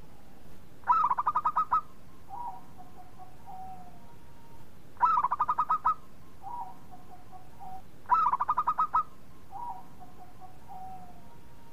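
Zebra dove (a local perkutut) singing three full song phrases a few seconds apart. Each is a quick run of rapid rolling coos followed by a few softer, lower notes.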